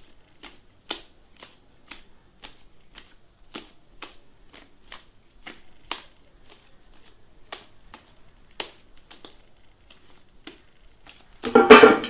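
Homemade glue slime being squeezed and stretched by hand, giving irregular small clicks and pops, about two or three a second. A louder, fuller sound comes about eleven and a half seconds in, leaving a short steady tone.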